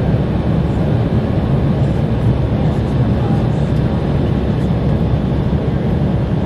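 Steady low rumble inside the cabin of an Embraer E-170-200 LR from its two GE CF34-8E5 turbofan engines running while the jet is barely moving on the runway.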